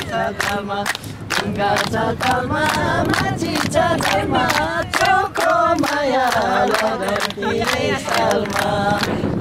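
Nepali dohori folk song sung by a group of voices without instruments, over a steady beat of sharp strikes about twice a second.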